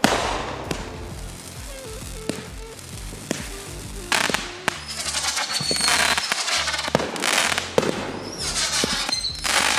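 Consumer fireworks going off in a series of sharp bangs. From about four seconds in, dense crackling follows the bursts, with a few short whistles.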